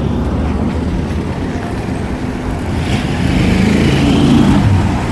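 A motor vehicle engine running, with road noise, growing louder about three seconds in and easing off near the end.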